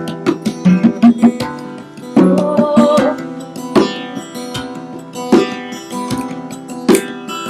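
Live acoustic band music: plucked string notes over regular hand-drum strikes, with one held melodic note about two seconds in.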